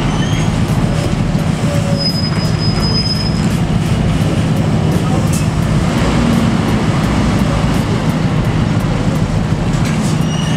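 Heavy-haul truck's diesel engine running with a steady low drone while hauling a railway carriage on a low-bed trailer, labouring under the heavy load on a steep climb. A brief high whistle sounds about two seconds in.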